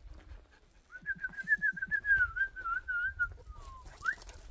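Whistling: a long warbling note, followed by a short falling whistle and a quick upward whistle.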